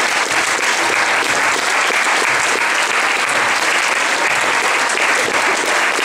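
Theatre audience applauding steadily, many hands clapping at once.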